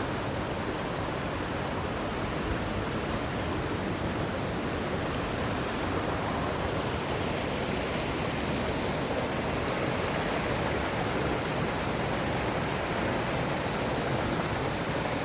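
Mountain stream water running steadily, an even rushing hiss with no breaks.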